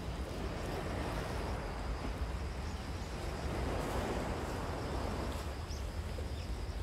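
Wind rumbling on the microphone over a steady wash of sea noise from surf on the rocky shore.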